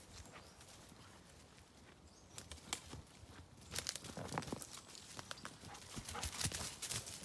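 Footsteps of a walker and two dogs through dry twigs and leaf litter on a woodland floor: scattered crackles and twig snaps, sparse at first and busier from about two and a half seconds in.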